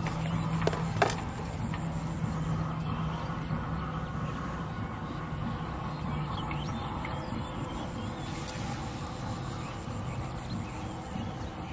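Steady low hum of a distant motor that fades out about halfway through, over an even background hiss, with a couple of sharp clicks about a second in.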